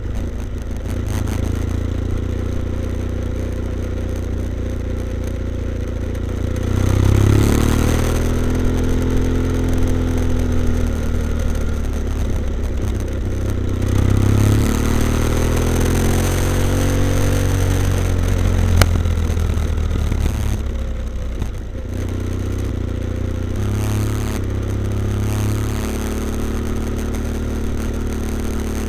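BMW F800ST's parallel-twin engine through a Blue Flame twin-port exhaust with both baffles in, ticking over at low speed and then accelerating twice, about seven and about fourteen seconds in, the pitch rising and falling away each time. Wind noise rises while it is under way.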